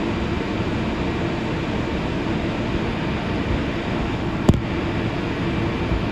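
R62 subway car running through a tunnel: a steady rumble of wheels on rail with a faint hum, and one sharp clack about four and a half seconds in.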